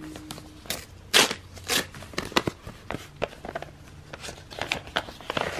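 Paper mailing envelope being torn open by hand: a series of short rips and crinkles, the loudest a little after a second in.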